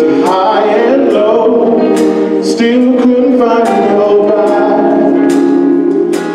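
Gospel choir singing together, backed by a live band: drum kit with repeated cymbal strikes, electric bass and organ.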